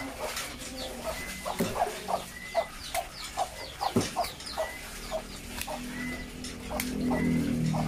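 Chickens clucking over and over, with a few sharp clicks from a knife cutting into the rubber jacket of a coaxial cable. A low hum rises over the last few seconds.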